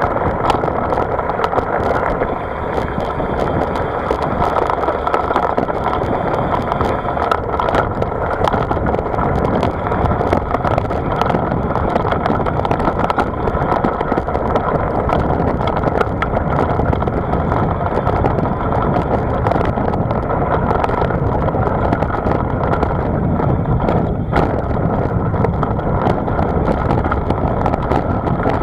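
Steady wind rush and rolling noise from a camera riding on a moving vehicle, with many small rattles and knocks throughout.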